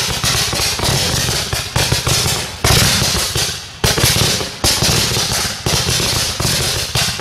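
Fireworks going off in quick succession: constant crackling, broken by a sharp loud bang about once a second as shots are launched and burst.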